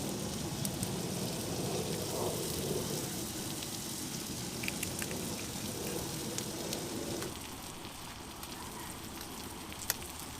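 Food sizzling in a frying pan on a wood-burning titanium camp stove: a steady frying hiss, fuller for the first seven seconds or so, with a sharp click near the end.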